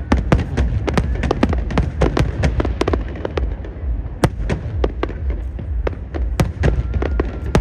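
Fireworks display: rapid, overlapping bangs of aerial shells bursting, several a second, over a continuous low rumble.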